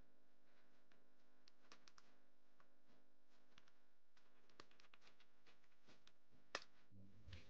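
Faint, irregular clicks of a computer keyboard and mouse being used, with one sharper click about six and a half seconds in.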